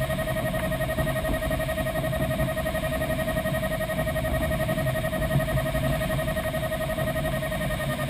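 Steady rush of airflow around the canopy of a single-seat Grob Astir CS 77 glider in free flight, with a continuous high tone over it.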